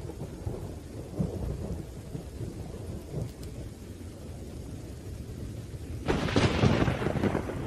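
Rain falling with low rumbling thunder, then a sudden, louder crack of thunder about six seconds in.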